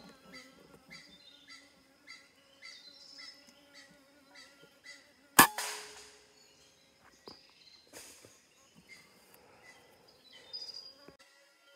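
A single sharp shot from a PCP air rifle about halfway through, the loudest sound by far. Before it, short chirping calls repeat about twice a second.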